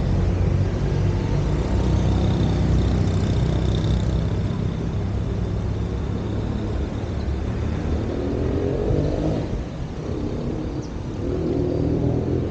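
Street traffic: motor vehicle engines running close by, one accelerating with a rising pitch about two-thirds of the way through, and another starting to rise near the end.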